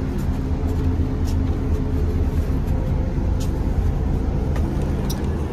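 Steady engine hum and road rumble heard from inside a moving road vehicle, with a few faint ticks.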